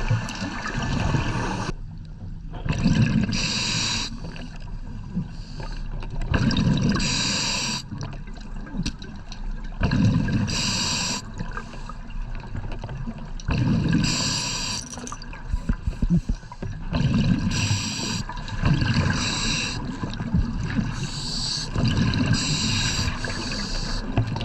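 A scuba diver breathing underwater through a regulator, with the hiss of air and the gurgle of exhaled bubbles repeating in a cycle about every three to four seconds.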